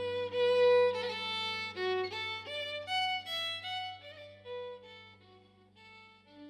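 Background music: a fiddle playing a quick run of single notes over a steady low drone. The notes slow and fade near the end.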